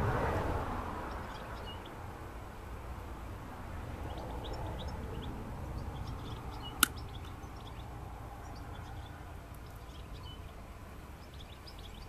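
Small birds chirping faintly over a low, steady rumble outdoors; about seven seconds in, one sharp snip of hand pruning shears cutting through an olive sapling's root.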